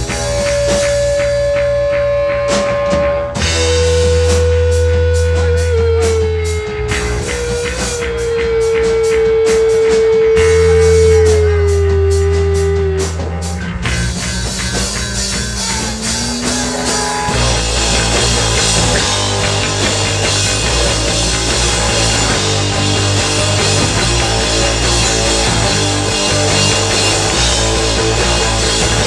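Rock band playing live: long held lead notes that slide down in pitch ride over heavy bass and a steady drum beat. About seventeen seconds in, the full band comes in denser.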